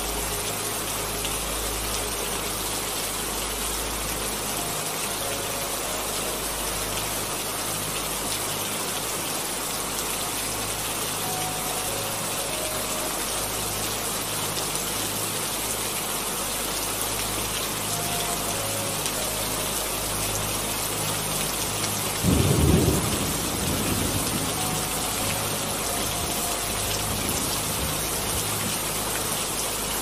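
Steady heavy rain, with one short clap of thunder about two-thirds of the way through that tails off into a brief rumble.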